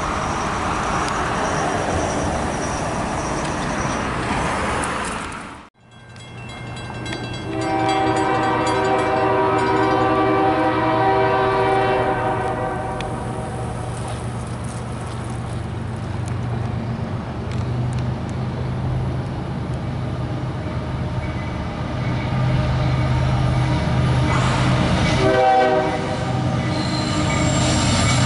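Diesel freight locomotive blowing its horn on approach to a grade crossing: one long horn blast about a quarter of the way in, then the low rumble of the locomotive's engine growing louder as it nears, and the horn sounding again near the end. Before that, for the first few seconds, road traffic passing a crossing, cut off abruptly.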